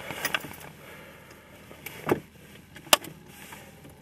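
Keys jangling with a few separate sharp clicks and knocks, the sharpest about three seconds in, as the truck is readied for a start; no engine is running or cranking.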